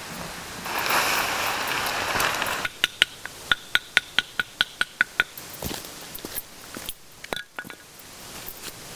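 A hiss lasting about two seconds, then a quick run of about a dozen sharp, slightly ringing clicks, about five a second, tapering into a few scattered clicks.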